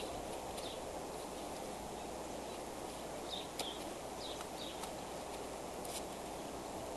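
Bald eagle shifting about on its stick nest: a few faint sharp clicks of its feet on the sticks, over a steady low outdoor rushing noise, with several short high chirps scattered through.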